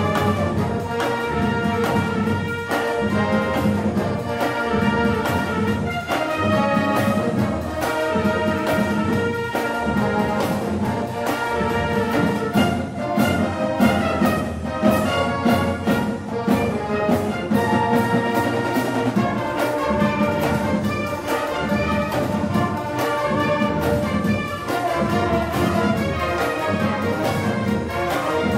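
Background music led by brass, orchestral in style, with a steady driving beat.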